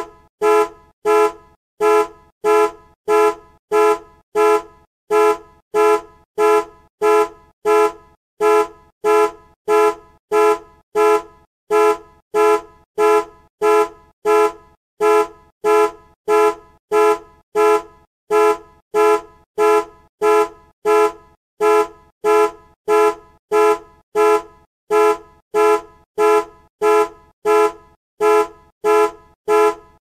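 Car horn beeping in short, evenly spaced toots, about three every two seconds, repeating without change.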